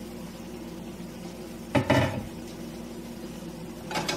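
Metal cookware clanking against a pan on the stove, one short loud clatter about two seconds in and another starting just at the end, over a steady low hum.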